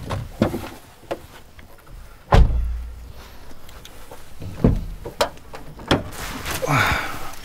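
A series of knocks and thunks from a Suzuki Jimny's doors, the loudest a heavy door slam about two and a half seconds in, followed by several lighter knocks.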